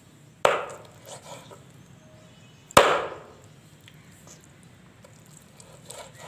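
Kitchen knife chopping raw chicken on a wooden board: two sharp chops about two seconds apart, with a few light knocks of the blade in between.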